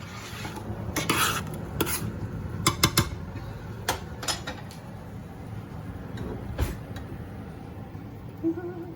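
Kitchen utensils clinking and knocking against pots and dishes, with several sharp clinks close together in the first half and one more about two-thirds of the way in, over a steady low hum.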